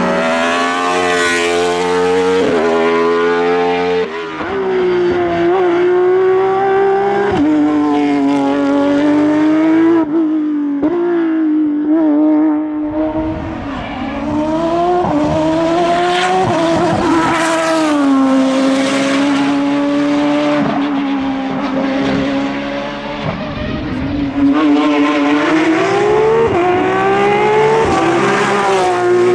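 A hillclimb racing prototype's engine running at high revs. The pitch climbs and drops sharply at each gear change, easing off briefly twice before picking up hard again.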